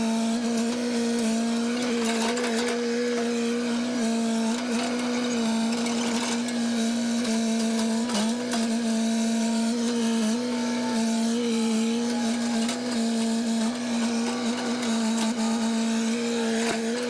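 A machine running steadily at a constant high pitch, with a few brief small dips in pitch.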